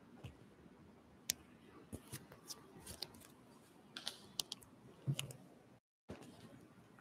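Scattered light clicks and taps of small objects being handled, over quiet room tone. The sound cuts out completely for a moment shortly before the end.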